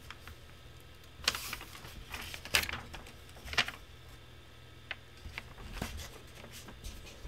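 Several soft, scattered clicks and short rustles over a faint steady low hum.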